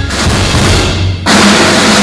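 Background music with drums, which gets louder and fuller about a second in.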